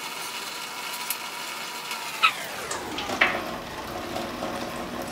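Steady hiss of heavy rain, with two sharp clicks a little after two and three seconds in. A faint hum underneath glides up in pitch shortly after two seconds.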